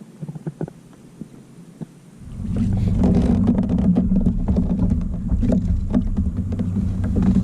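Pedal kayak on the water: a few light knocks on the hull, then about two seconds in a loud, steady low rumble with many small knocks sets in and keeps going.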